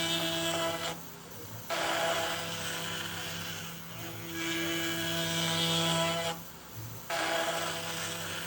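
CNC router spindle running with a steady whine while the bit cuts wood trim, the cutting noise swelling and easing as it moves. The sound drops away briefly twice, about a second in and again near the end.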